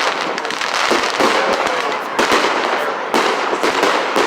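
Fireworks display: a run of loud bangs, the strongest about once a second, over dense continuous crackling.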